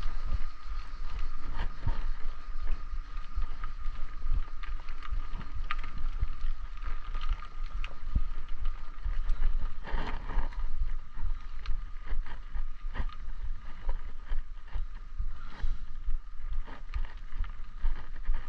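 Wind buffeting the microphone of a camera on a moving bicycle, with frequent small knocks and rattles from the bike over the path and a steady thin whine.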